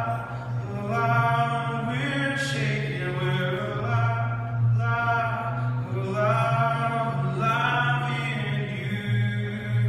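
Live worship song: a singer's voice in long held phrases over a steady low sustained note, in a stone church.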